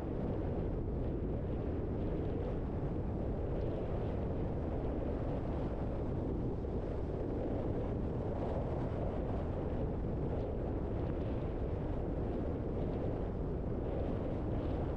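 Steady road and wind noise of a car driving at an even pace, a constant low rumble without distinct events.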